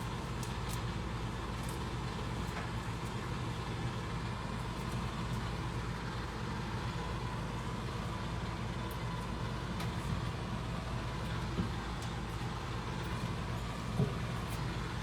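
Steady low background hum, with a couple of faint knocks about two and three seconds before the end.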